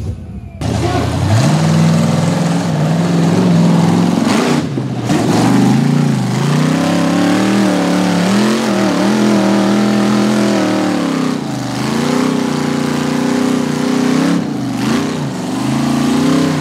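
Rock bouncer buggy's engine revving hard, held near high revs with the pitch swinging up and down and dipping briefly a few times as it claws up a steep rock face.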